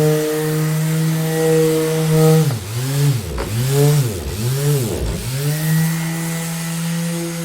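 Electric orbital sander motor running with a steady hum. About two and a half seconds in, its pitch dips and recovers about four times in quick succession, then it settles back to an even run.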